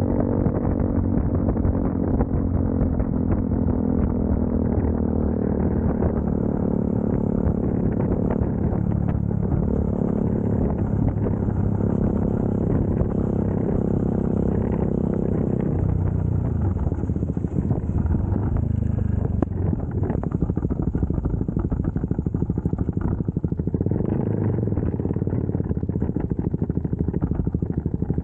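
CFMoto 300SS single-cylinder motorcycle engine running on the road while the bike slows down. The engine note falls about halfway through and rises briefly a few seconds before the end.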